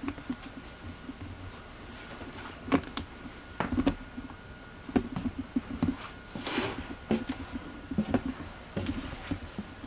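Footsteps on a floor, soft irregular knocks about once a second, with a brief rustling rush about two thirds of the way through. A faint steady high tone runs underneath.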